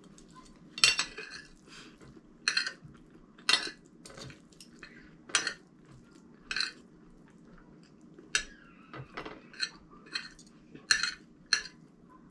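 Metal spoon and fork clinking and scraping against a plate while food is scooped up, about a dozen sharp, irregularly spaced clinks.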